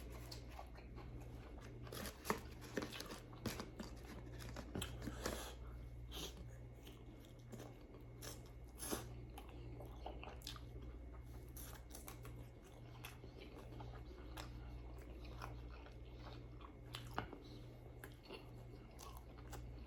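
A person chewing and crunching food close to the microphone, with irregular soft crunches and mouth clicks throughout, over a low steady hum.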